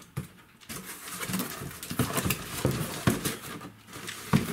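Large cardboard box being handled: its flaps folded shut and the box tilted and shifted by hand, giving irregular knocks, rubs and scrapes of cardboard.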